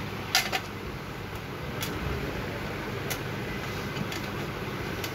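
A few short, sharp clicks and taps as small parts and a round tin container with its lid are handled: two close together about half a second in, then single ones near two and three seconds and at the end. There is steady background noise underneath.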